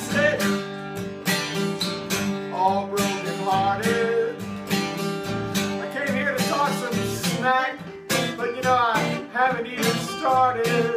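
Two acoustic guitars strumming a country-style tune in an instrumental break between verses, with a wavering melody line above the chords.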